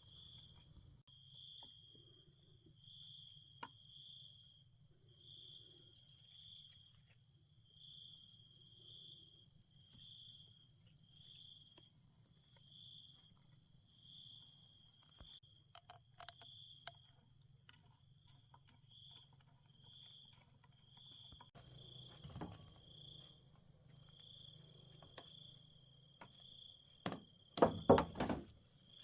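Crickets or similar insects calling: one steady high trill, with a second call pulsing about once a second. A few sharp knocks and a clatter near the end are louder than the insects.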